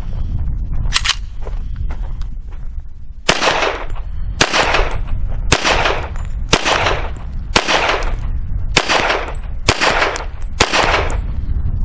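Hi-Point .45 ACP pistol fired in slow, steady succession: about nine shots roughly a second apart, starting about three seconds in, each with a short echoing tail. A steady low rumble runs underneath.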